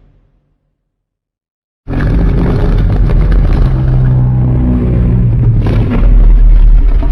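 Godzilla monster sound effect: after a fading tail and about a second and a half of silence, a loud rumbling sound starts abruptly and runs on.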